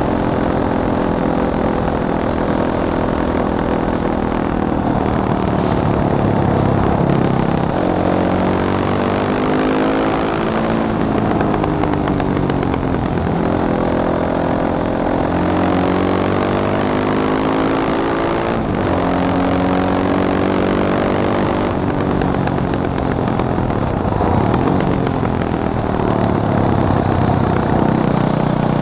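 Fantic Caballero 500 single-cylinder motorcycle engine running under way, its pitch repeatedly rising as it accelerates and falling as it eases off, with sudden drops between pulls.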